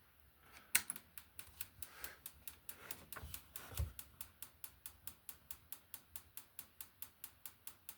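BBMPulser 2B1 PEMF pulser's coil clicking sharply with each magnetic pulse, a steady rhythm of about four to five clicks a second, with one louder click about a second in.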